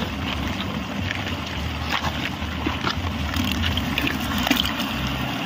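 Wind rumbling on the microphone, with a few faint clicks and scrapes.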